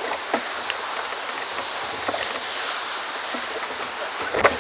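A boat running through rough, foamy sea: a steady rush and hiss of water and spray, with a few short slaps against the hull and a louder knock near the end.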